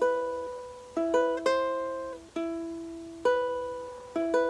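An Uma ukulele picking a slow single-note intro riff over an E minor chord shape. Each plucked note rings and fades, about one a second, with a quick run of notes about a second and a half in and a pair near the end.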